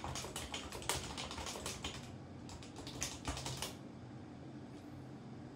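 Typing on a computer keyboard: a quick run of keystrokes that stops about two-thirds of the way through, leaving only a faint low hum.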